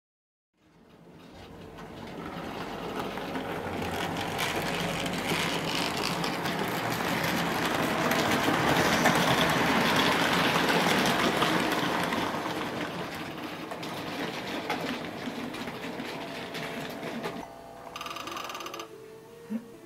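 Sn2½ model freight train running past on its track: a dense, rattling clatter of small wheels and motor that grows louder to a peak about halfway through, then fades away.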